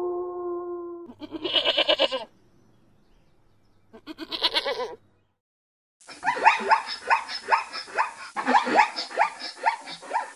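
A wolf's held howl ends about a second in, followed by two short wavering calls. Then comes a long series of quick, falling, yelping barks from a zebra, about three a second.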